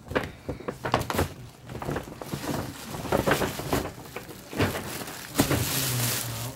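Clear plastic wrapping crinkling and a cloth dust bag rustling as a new backpack is unwrapped by hand, with irregular knocks of handling. The crinkling grows denser in the second half.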